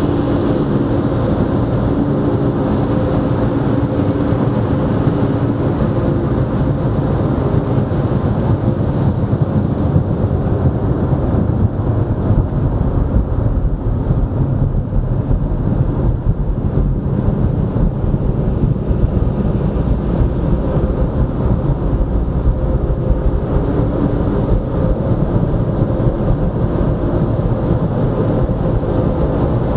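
Tunnel car wash machinery heard from inside the car cabin: a steady, loud low rumble with a hum. A water-spray hiss on the car fades out about ten seconds in, as the car leaves the spray.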